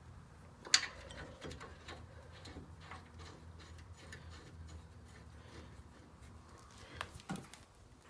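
Faint metallic ticks and clicks of the brake caliper mounting-bracket bolts being started by hand, with a sharper click about a second in and two more near the end.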